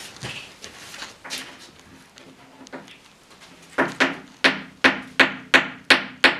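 A small hammer striking parts of a flat-pack desk in quick, even blows, about three a second, each with a short ring, starting a little under four seconds in. Before that, scattered light knocks and handling of the parts.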